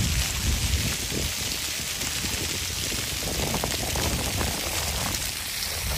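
Fountain jets splashing down onto a shallow paved pool: a steady hiss of falling water.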